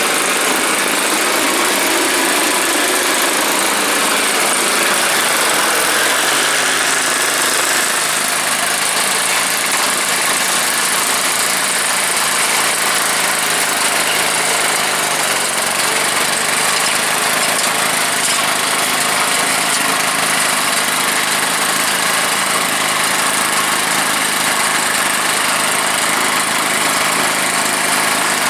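Two-stroke Druzhba chainsaw engine powering a homemade snowblower, running steadily and loud.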